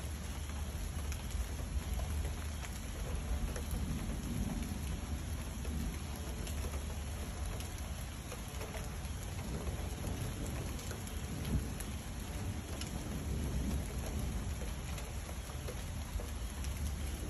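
Steady rain pattering, with low rolling thunder rumbling underneath that swells twice, once a few seconds in and again near the end, and scattered drip ticks.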